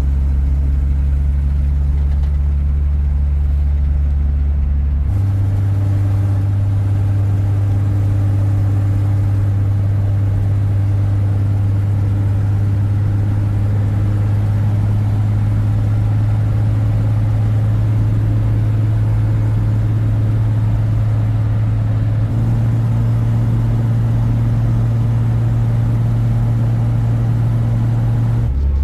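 Toyota Land Cruiser HJ60's 2H straight-six diesel droning steadily while driving in fourth gear, heard inside the cabin. The low drone shifts pitch about five seconds in and again about twenty-two seconds in.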